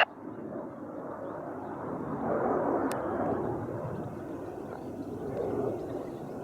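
Steady rushing rumble of distant jet aircraft engines, swelling and fading slightly, with one faint click about three seconds in.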